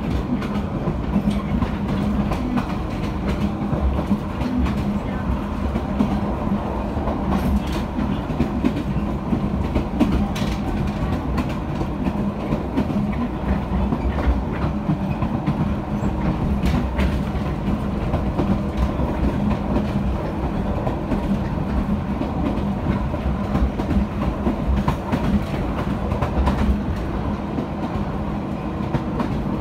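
Toyama Chiho Railway electric train running along the main line, heard from on board: a steady rumble of wheels on rail with a low hum and scattered clicks of the wheels over rail joints.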